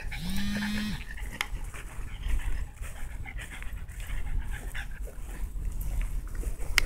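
Small dog panting, with one short steady whine near the start.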